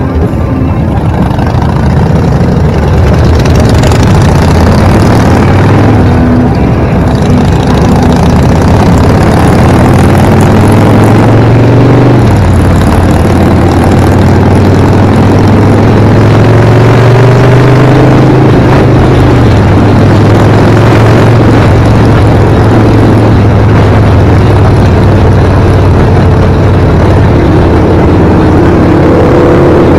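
Harley-Davidson V-twin motorcycle engine, heard from a camera on the bike, pulling away from a stop and accelerating. Its pitch rises and then steps down at gear changes a couple of times, with wind and road noise throughout.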